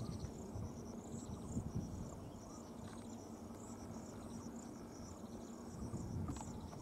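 Insects chirping in a fast, evenly repeating high-pitched pattern, over a low steady rumble.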